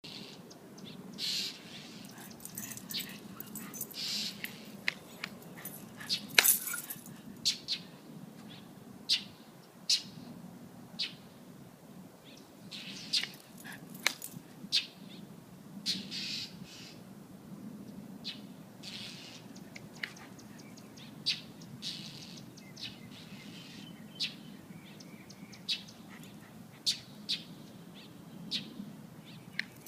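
A bird calling again and again: short, sharp chirps every second or so, with a few longer calls among them.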